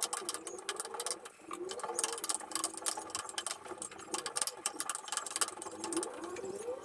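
Chopped onions sizzling and crackling in butter in a frying pan, stirred with a wooden spatula, over a wavering hum in the background.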